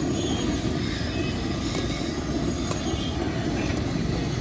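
Steady low rumbling roar of the stove burner under an iron wok, where lumps of jaggery are boiling down in water.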